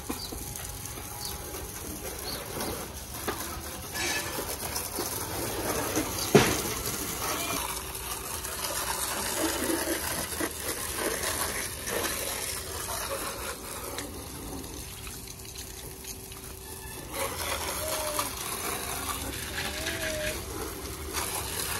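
Water running and splashing, with one sharp click about six seconds in.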